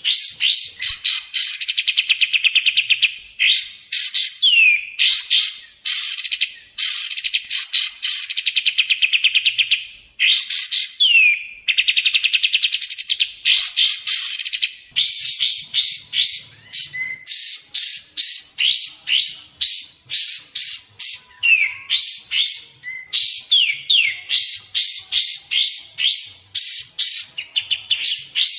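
Kapas tembak bird singing without pause: fast, high trills of rapidly repeated notes in phrases a second or two long, with short gaps and now and then a quick downward-sliding whistle. A lure-call song used to attract wild birds and to tutor cage birds.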